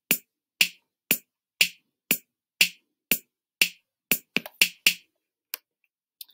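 BandLab 808-kit drum machine playing back a programmed groove at 120 bpm: a sharp hit every half second of hi-hat layered with kick or snare, then a quicker run of hits from the last bar's pattern before the beat stops about five seconds in. A single click follows shortly after.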